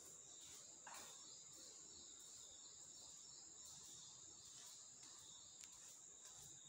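Near silence: faint room tone with a steady, high-pitched trill of crickets, and a soft tap about a second in.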